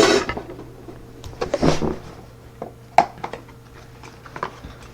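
Calipers being handled and closed onto a very thin lock pick: rustling, a few light clicks, and one sharp click about three seconds in.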